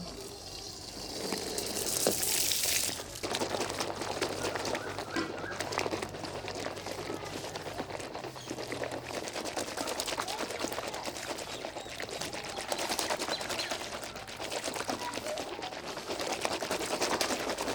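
Water splashing briefly about a second in, then a dense, continuous wet crackling of soapy foam being worked.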